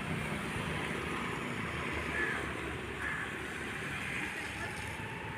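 Steady road-traffic noise, with a few faint, short, high chirps now and then.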